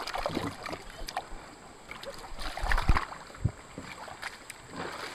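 River water splashing and sloshing as people wade and work in the shallows, in irregular bursts, the loudest about three seconds in.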